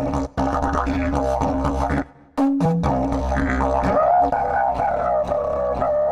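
Sampled didgeridoo from UVI World Suite's Australia library playing a rhythmic, pulsing drone with shifting overtones. It breaks off briefly about two seconds in, then resumes.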